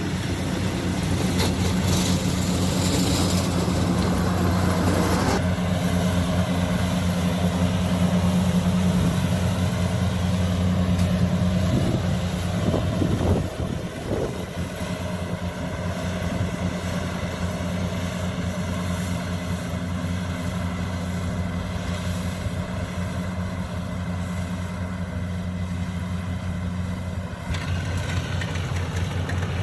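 Diesel engine of farm machinery in a rice field running steadily with a constant low hum. Its higher-pitched hiss drops off about five seconds in, there is a brief dip around the middle, and the hiss comes back near the end.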